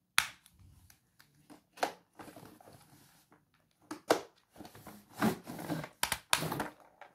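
Cardboard toy box and its plastic packaging crinkling and rustling as the box is opened and a toy vehicle is pulled out: irregular crackles and clicks, busier in the second half.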